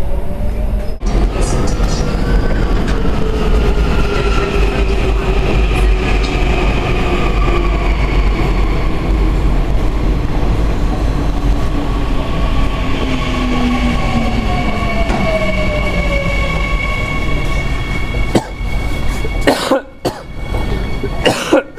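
Subway train braking into a station: a steady low rumble under several electric motor whines that glide slowly down in pitch as it slows. A few sharp clicks and short dips in the noise near the end.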